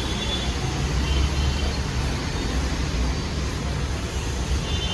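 HMT GTC28 tool and cutter grinder running while its slide is being traversed: a steady low machine hum with a faint high whine.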